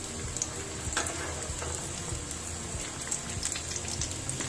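Breaded vegetable cutlets deep-frying in hot oil, being browned to golden: a steady sizzle with scattered small crackles.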